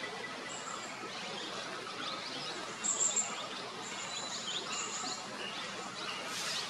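Forest ambience: several birds chirping in short quick notes, with a high thin tone that comes and goes, loudest about three seconds in, over a steady hiss.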